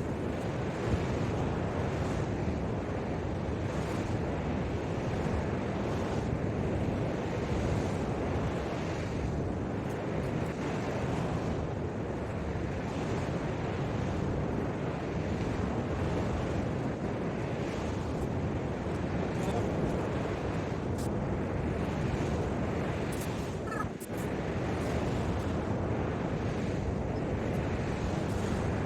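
Ocean surf breaking steadily on a beach, with wind buffeting the microphone.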